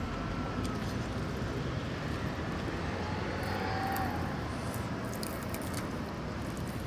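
Steady low background noise with a hum, and a few soft clicks from eating by hand.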